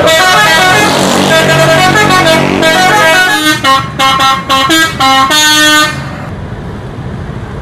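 A bus's multi-tone musical 'telolet' horn playing a quick melody of stepped notes, the later notes short and separated, stopping abruptly about six seconds in. After it, only a quieter steady background noise.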